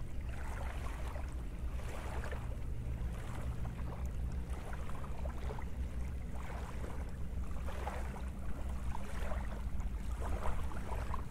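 Wind rumbling steadily on the microphone, with small waves washing softly on a shallow sandy shore, swelling every second or two.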